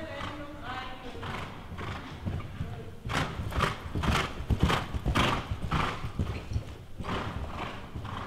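A horse cantering on the sand footing of an indoor arena: hoofbeats about two a second, loudest for a few seconds in the middle as the horse passes close.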